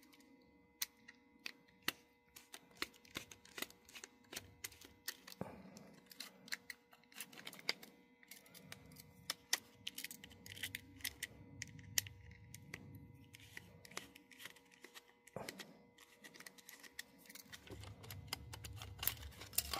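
Small screwdriver working the screws of an HO-scale model locomotive's chassis as it is taken apart: faint, irregular small clicks and scrapes of the metal tip on screws and parts.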